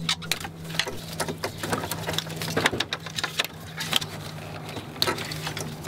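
Plastic wiring connectors and bundled wires of a C3 Corvette's under-dash harness clicking, rattling and rustling in quick, irregular clicks as they are pried and pulled apart by hand with a metal tool.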